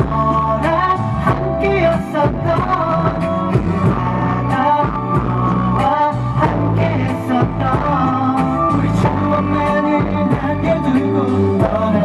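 Male pop vocal group singing into handheld microphones over backing music with a steady beat.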